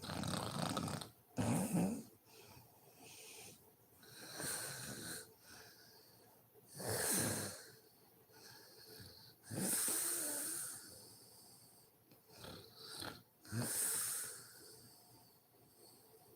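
A sleeping woman snoring, one snoring breath about every two to three seconds. Several of the breaths carry a high, wheezy hiss.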